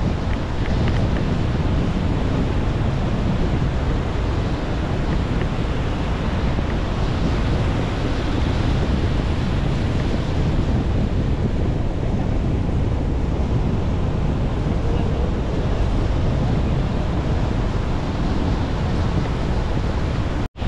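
Strong wind buffeting the microphone over the steady wash of breaking ocean surf. The sound cuts out briefly near the end.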